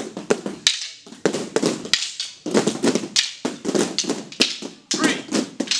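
Kali practice sticks beaten rapidly on the padded mat and against each other: a fast, irregular clatter of sharp taps and dull thuds.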